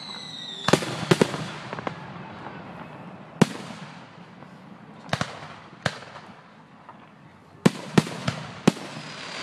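Aerial fireworks shells bursting: about a dozen sharp bangs in irregular clusters, with a quieter gap in the middle. A falling whistle fades out in the first second.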